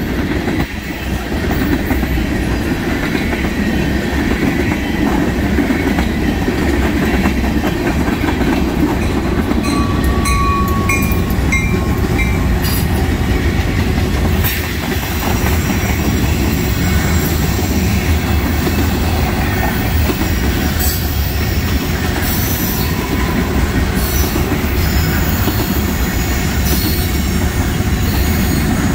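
Freight train cars, tank cars and covered hoppers, rolling past at speed: a steady loud rumble of steel wheels on rail with clacks over the rail joints and brief wheel squeals around ten seconds in.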